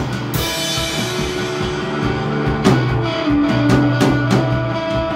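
Drum kit and electric bass playing a rock tune together. A cymbal crash just after the start rings and fades while the bass holds low notes, with sharp drum hits near the middle.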